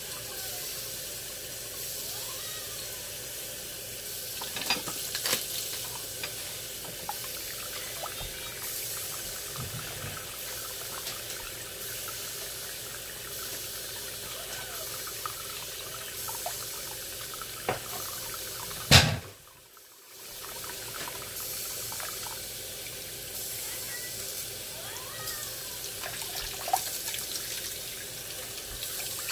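Kitchen faucet running a steady stream of water onto a zip-top plastic bag holding a block of ice and splashing into the sink. About two-thirds of the way through comes one sharp click, then about a second of near silence before the running water is heard again.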